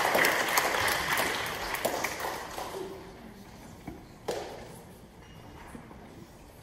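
Audience applause, many hands clapping, that dies away over the first three seconds, with a high steady tone mixed in. Then a quiet hall, with a single knock about four seconds in.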